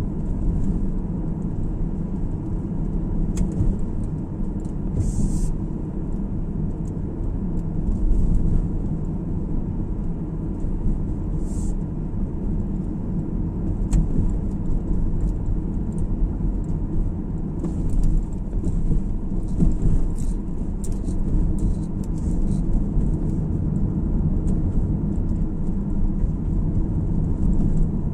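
Car driving along a road: a steady low rumble of tyres and engine, with a couple of short high hisses about five and eleven seconds in, and a few faint ticks later on.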